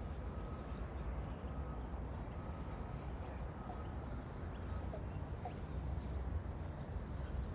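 Outdoor ambience: many short, high bird chirps repeating over a steady low rumble.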